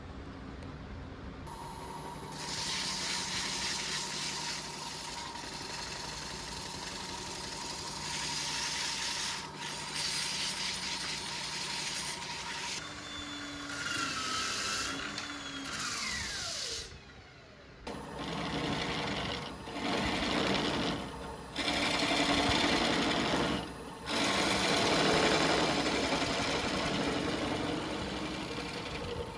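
A small electric power tool working wood. It runs steadily at first, then in short bursts that start and stop every second or two.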